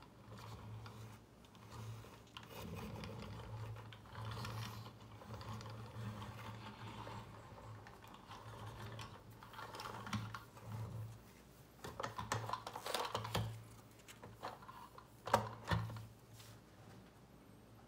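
Handling noise from a die-cast toy semi truck and its cardboard packaging: rustling and light clicks and taps as the model is slid out of the box and set down, with the sharpest clicks near the end, over a low steady hum.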